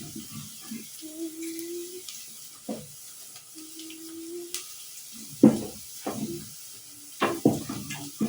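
Onions and meat frying in oil in a cooking pot, a faint steady sizzle, with sharp knocks of a cooking spoon against the pot, the loudest about halfway through.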